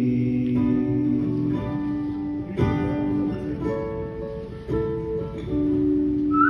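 Solo acoustic guitar strummed live, with a fresh chord strummed about once a second.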